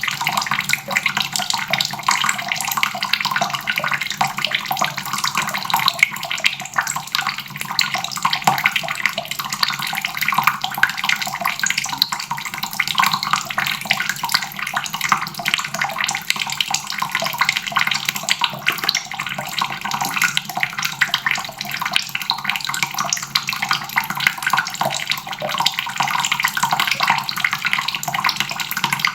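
Water running steadily from a faucet and splashing, an unbroken spattering rush.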